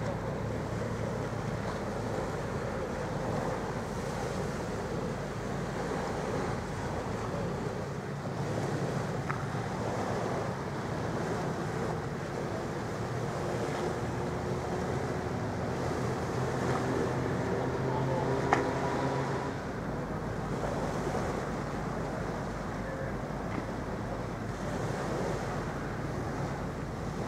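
Wind on the microphone and lapping harbour water, with the low steady drone of a ferry's engines underneath. One short sharp click about two-thirds of the way through.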